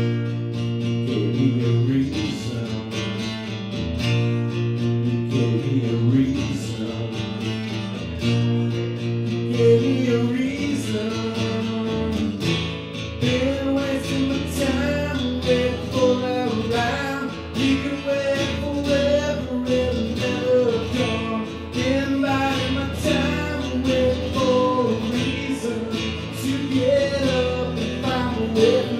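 Live solo acoustic guitar, strummed, with a man singing over it through much of the second half.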